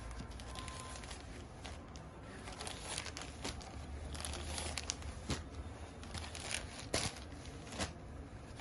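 Crisp rustling and crinkling of folded linen sarees being handled and laid down one on another, with a few sharper rustles as each piece is set down.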